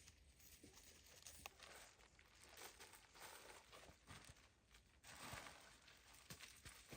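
Very faint, irregular rustling and crinkling, a little busier from about five seconds in.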